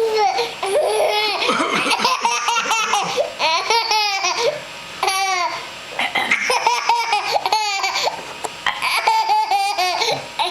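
A 10-month-old baby laughing in several separate bursts, with quick pulsing giggles between higher sliding squeals, set off by the throat-clearing sounds he finds hysterical.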